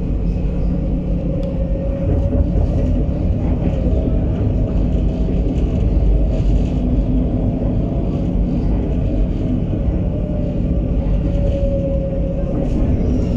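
Tram running along its line: a steady low rumble with a faint electric motor whine that drifts slightly up and down in pitch.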